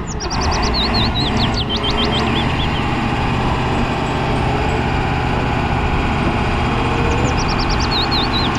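Engine of a large Caterpillar forklift running steadily as it drives. Quick high chirps sound in the first couple of seconds and again near the end.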